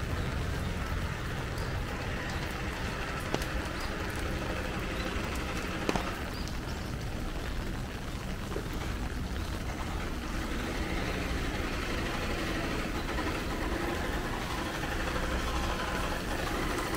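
Heavy rain falling steadily on a city street, over a low rumble of road traffic, with a sharp tap about six seconds in.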